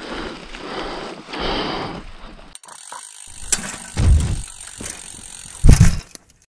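Mountain bike being ridden on a rough dirt trail: rattling and clicking from the bike, with two heavy low thumps, the louder one near the end.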